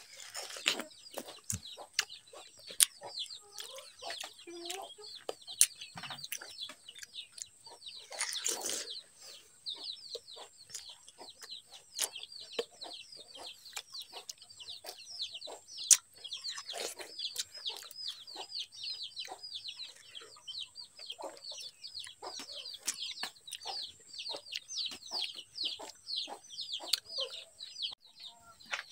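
Chickens calling in a steady stream of short, high, falling chirps, many a second. Sharp clicks and crunches from watermelon being bitten and chewed close to the microphone come in among them.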